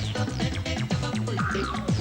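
Electronic dance backing track with a steady beat and repeating bass notes.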